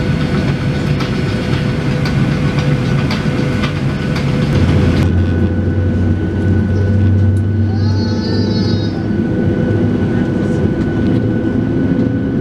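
Steady cabin noise of a Boeing 737-800 on the ground, engines and air conditioning running: a constant whine over a rumble, with a deeper hum coming in about four and a half seconds in.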